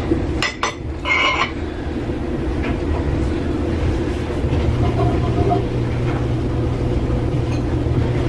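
A steady low mechanical rumble with a faint hum, and a short clatter of kitchen items being handled about half a second to a second and a half in.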